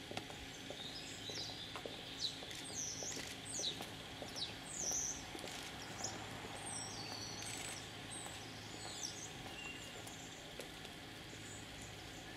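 Birds chirping with many short, high calls, busiest in the first half and thinning out near the end, over a steady low background hum.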